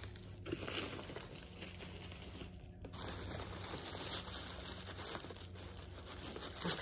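Mailer package being opened by hand, its purple wrapping rustling and crinkling as it is pulled out, with a brief lull about two and a half seconds in.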